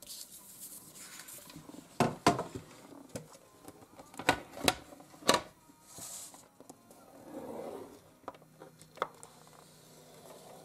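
Decorative paper being scored and handled on a work table: several sharp clicks and taps of a tool against the paper and table, with short stretches of rubbing and paper rustling.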